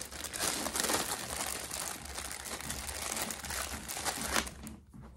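Plastic packaging crinkling and rustling as hands rummage through it, a dense, continuous crackle that dies down about four and a half seconds in.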